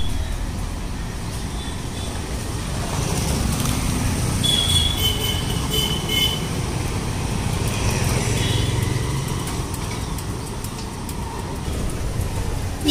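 Street traffic: cars and motorbikes passing on a city road, a steady rumble, with a few short high-pitched tones about five seconds in.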